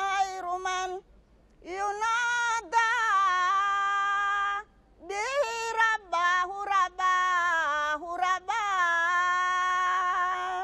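A woman singing alone and unaccompanied, a devotional chant in long held notes with sliding ornaments, broken by short pauses for breath about a second in and again near the middle.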